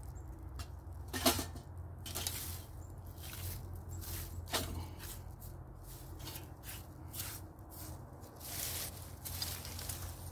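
Irregular crackles and snaps from a twig fire burning in a small folding wood stove, mixed with rustling as hands handle sticks and dry tinder, over a low steady rumble. A sharp snap about a second in is the loudest.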